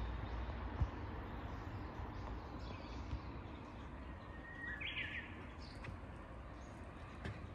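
A Japanese bush warbler sings one short phrase about five seconds in: a held whistle that breaks into a quick, higher flourish. Under it runs a steady low background rumble.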